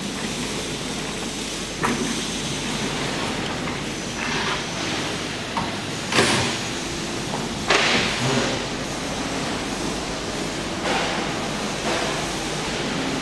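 Steady workshop background noise, with a handful of sharp knocks and bangs scattered through it; the loudest comes about six seconds in.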